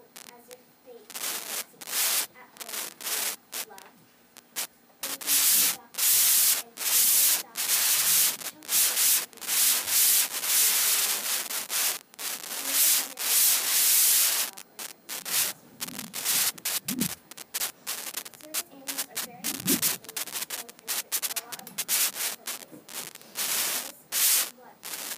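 Loud, irregular rubbing and scraping noise in bursts of up to about a second, heaviest through the middle stretch.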